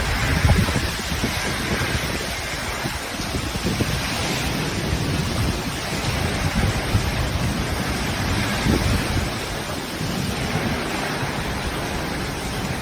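Storm with heavy rain and gusting wind, the gusts buffeting the microphone in uneven low rumbles.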